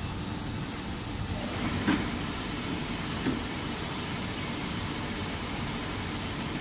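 BOPP tape coating and slitting-rewinding machine running with a steady noise, with two brief knocks about two and three seconds in.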